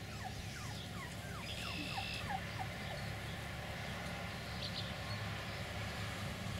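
Beagle puppy whimpering: a quick run of short, high, falling whines, about three a second, that stops about two and a half seconds in, over a steady low hum.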